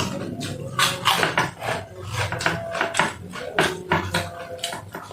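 Close-up eating sounds: a spoon clinking against a bowl amid chewing, heard as a dozen or so irregular sharp clicks and smacks.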